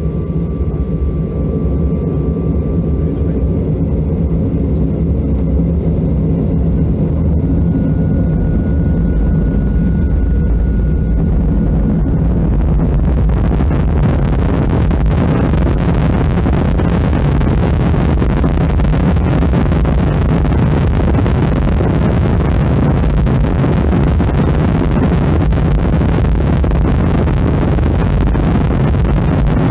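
Boeing 737-800's CFM56 jet engines heard from inside the cabin: a steady low engine hum with a thin high whine over it, until about thirteen seconds in the sound grows fuller and hissier across all pitches as the engines spool up to higher thrust.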